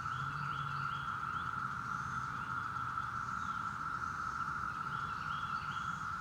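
Northern mockingbird singing short, varied phrases in bouts near the start and again near the end. Underneath runs the steady, unbroken drone of a Brood X periodical cicada chorus, the loudest sound throughout.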